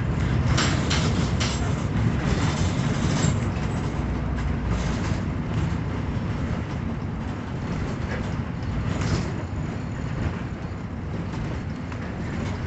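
Cabin noise of a moving road vehicle: a steady low engine rumble with tyre and road noise, and a few short rattles about a second in and again near the middle.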